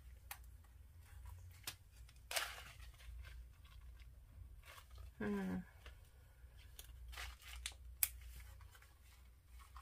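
Faint rustling and crinkling of small plastic zip bags of dried herbs being handled, with scattered light clicks and one louder rustle about two seconds in. A short low hum of a woman's voice about five seconds in.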